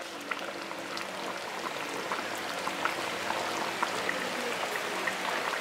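Pork caldereta with coconut milk simmering in a pan: the thick sauce bubbling, with many small irregular pops over a soft hiss.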